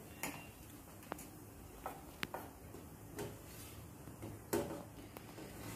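A steel spoon clinking and tapping against a stainless steel compartment plate while peanut chutney is served, a few scattered light knocks, the loudest about four and a half seconds in.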